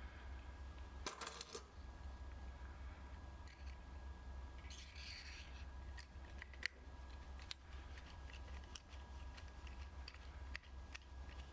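Scattered light clicks and rustles of small objects being handled, with a brief hiss about five seconds in, over a steady low electrical hum.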